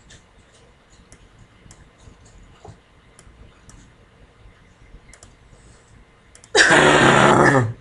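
Faint scattered clicks in a quiet room, then near the end a loud, harsh vocal outburst from a person lasting about a second.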